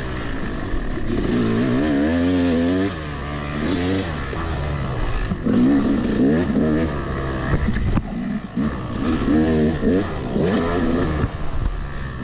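Yamaha YZ250 single-cylinder two-stroke dirt bike engine revving up and down over and over under load on a trail ride. The rider says its clutch and top end are worn out.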